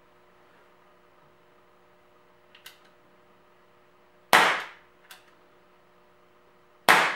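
Umarex Makarov CO2-powered BB air pistol fired twice, about two and a half seconds apart: each shot is a sharp crack that trails off briefly. Faint clicks come before the first shot and just after it.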